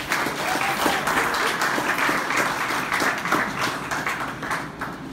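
People applauding, dying down near the end.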